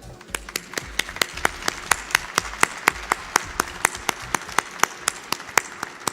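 Crowd applauding, with one pair of hands close by clapping sharply and evenly about four to five times a second.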